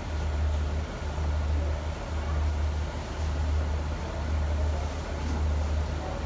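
Idling diesel engine of a train standing at the platform: a steady low rumble with a regular beat about once a second.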